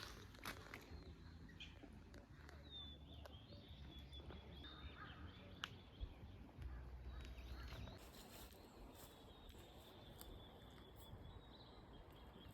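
Faint, high, wavering bird calls over quiet open-air ambience, with a few soft clicks and patches of low rumble.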